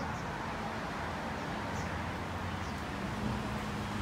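Steady low hum of vehicle engines and road traffic, with a few faint high chirps over it.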